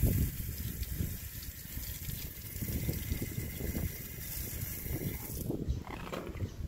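Tap water pouring and splashing onto a round metal grill grate as it is rinsed clean. The splashing stops suddenly about five and a half seconds in.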